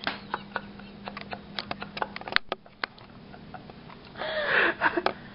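A spatula scraping and clicking against the inside of a stainless steel mixing bowl, a scattered string of sharp ticks. Near the end a breathy voice-like sound, louder than the ticks, joins in.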